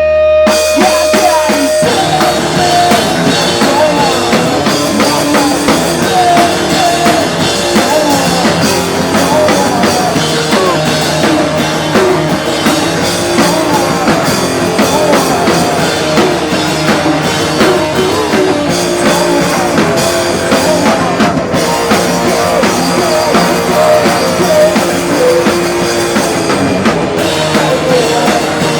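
A rock band playing live at full volume: a busy drum kit under sustained guitar chords. A held note carries over and drops out about two seconds in.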